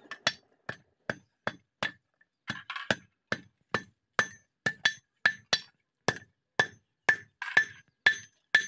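Hand hammer forging a red-hot steel sickle blade on a steel anvil block: steady, evenly paced blows about two to three a second, each a sharp metallic strike with a short ring.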